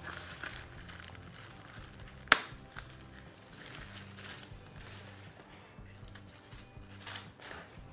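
Faint rustling and handling of an LED video light and its packaging, with one sharp click a little over two seconds in.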